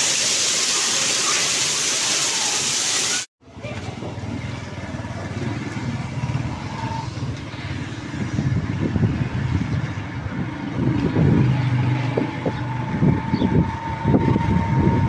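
Heavy rain pouring down onto a paved street, a loud steady hiss that cuts off about three seconds in. Then a small motorcycle's engine runs as it rides along a wet street, an uneven low rumble that swells in surges.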